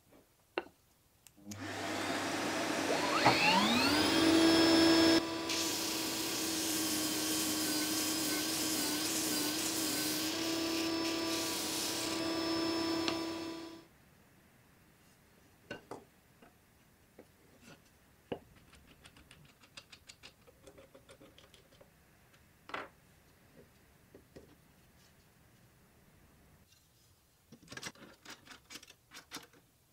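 Motor-driven disc sander starting up with a rising whine, running steadily for about ten seconds and then switching off. Afterwards come light clicks and small knocks of parts being handled.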